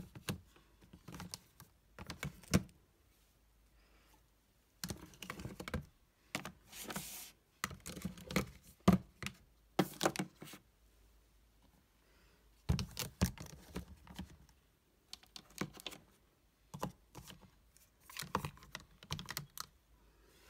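Plastic makeup compacts and palettes clicking and knocking as they are handled, set down and stacked, in irregular clusters with short pauses between. About seven seconds in there is one brief sliding scrape.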